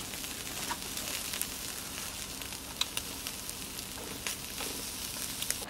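Slices of meat and shiitake mushrooms sizzling on a wire grill mesh over glowing charcoal, a steady hiss with scattered sharp pops and crackles.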